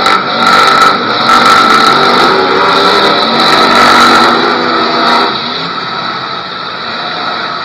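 Demolition derby car engines revving hard as the cars shove into each other, then easing off about five seconds in.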